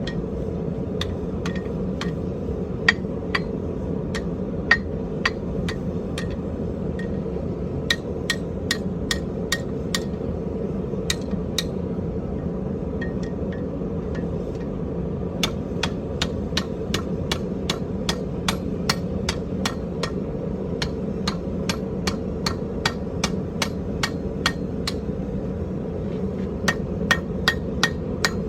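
Hammer blows on an iron rod against an anvil, straightening scrap ornamental iron: a long run of sharp, ringing strikes, often about two a second with short pauses. A steady low rumble runs underneath.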